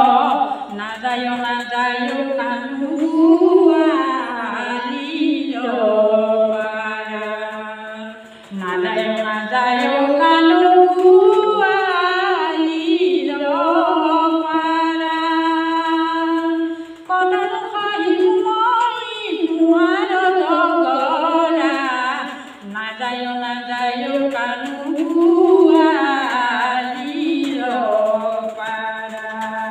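A woman singing an Assamese folk song (lokageet) into a handheld microphone, in long phrases of held, wavering notes with brief breaks for breath between them.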